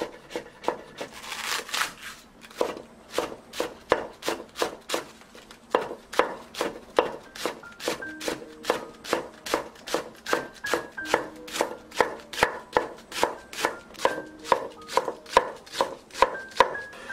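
Kitchen knife with a rectangular blade chopping on a wooden cutting board, first cutting carrot into thin matchsticks and then finely shredding cabbage. Each stroke is a sharp knock on the board, in a steady rhythm of about two to three cuts a second. About a second in there is a brief rasp.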